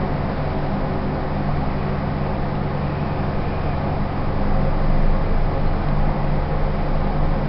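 Fujitec lift car travelling downward between floors: a steady low hum and rumble of the car in motion, slightly louder about five seconds in.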